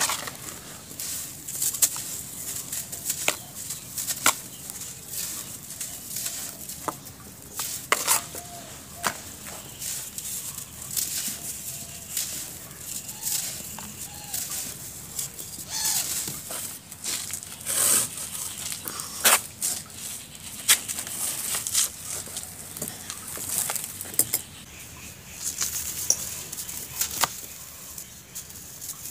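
Hands crushing and crumbling dry, powdery gray molded chunks: irregular crisp crunches and crackles, with the rustle of loose grit falling into a plastic bucket of powder.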